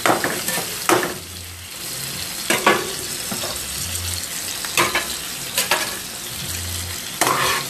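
Eggs, diced tomato and chile sizzling in a frying pan, with a steady frying hiss and several sharp scrapes and knocks of a spatula against the pan as the food is stirred.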